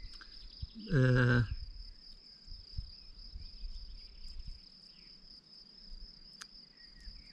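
Insects trilling in one steady, unbroken high note, with a man's voice sounding briefly about a second in.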